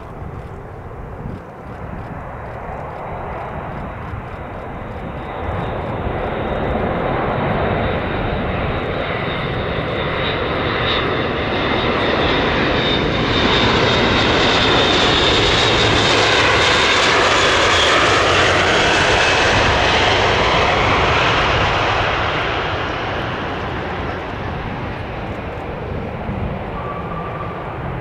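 Airbus A400M's four TP400 turboprop engines as the aircraft flies low past on its landing approach. A steady high whine runs over the engine noise, which grows louder, peaks about halfway through and then fades as it moves away.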